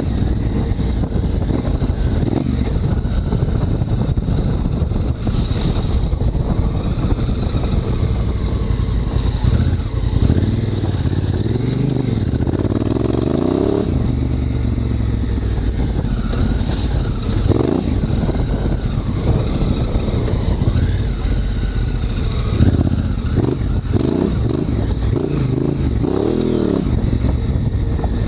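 Honda Africa Twin CRF1000L's parallel-twin engine running under way, its revs rising and falling repeatedly, over a continuous low rumble.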